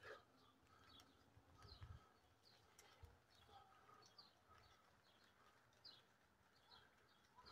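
Faint birdsong: many short, repeated chirps from several birds. A few low thumps come about two and three seconds in.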